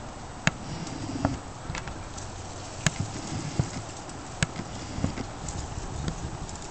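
Scattered sharp taps and clicks at irregular intervals, about six in all, over a steady outdoor background hiss.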